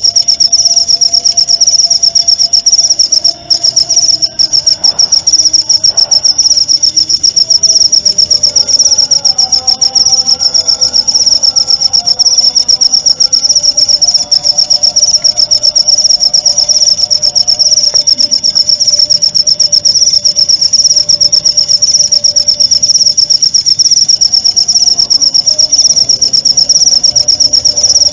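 Cricket trilling nonstop, a loud high-pitched rapid pulsing on one steady pitch, with fainter lower warbling calls beneath it, as used in bird-training recordings.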